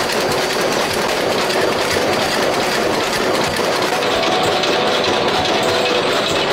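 Steady mechanical clatter of hot-forging machinery, with red-hot metal parts rattling as they drop onto a steel mesh conveyor. The clatter changes character about four seconds in.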